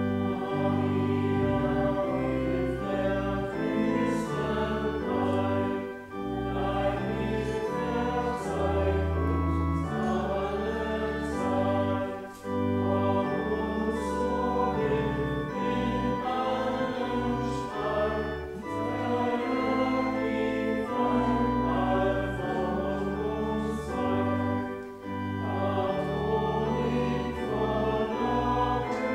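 Church organ accompanying voices singing a hymn, in sustained phrases about six seconds long with brief breaths between them.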